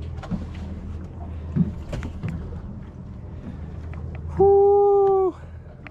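Low steady hum of the boat's idling engines with a few light knocks. Near the end comes a loud, held 'woo!' shout of about a second.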